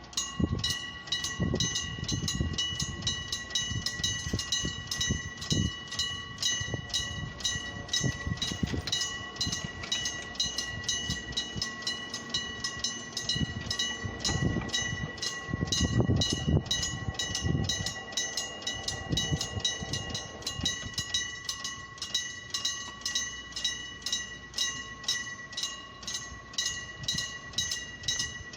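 Railway level-crossing warning signal starting up and ringing in a steady, even rhythm. Under it a train rumbles past, loudest about halfway through.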